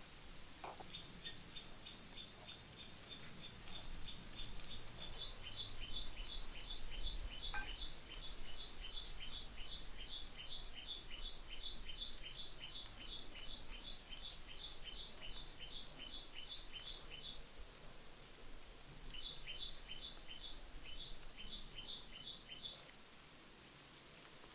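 A bird calling in a long, rapid series of short, high chirps, about four a second, breaking off for a moment and then resuming briefly.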